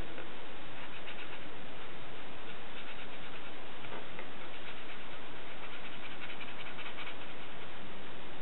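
Grey felt-tip pen scribbling rapidly back and forth on drawing paper: a scratchy rubbing made of quick strokes, busier about three seconds in and again near seven seconds.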